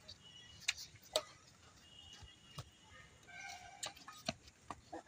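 Sharp, irregular taps, about six in five seconds, from rackets striking a shuttlecock in an outdoor badminton rally.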